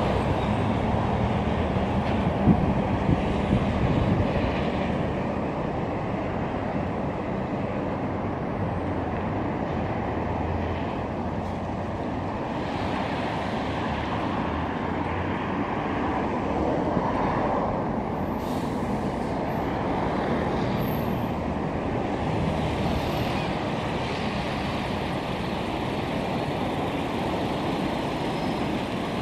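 Steady city road traffic: a continuous rush of cars, vans and trucks passing on a busy multi-lane road below, with a few short bumps on the microphone in the first few seconds.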